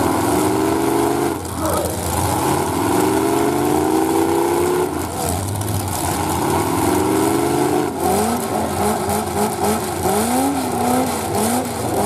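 Demolition derby car engines revving in three long, slowly rising pulls, then blipped up and down quickly, about twice a second, over the last few seconds.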